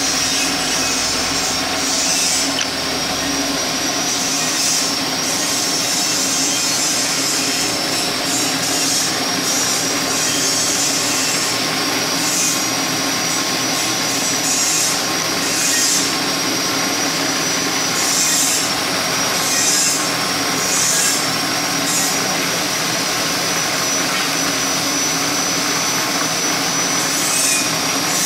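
Machine cutting a white plastic feed screw: a spinning cutter shaves the helical flights of the screw turning in a lathe, with a steady high machine whine and a scraping cutting noise that swells every few seconds.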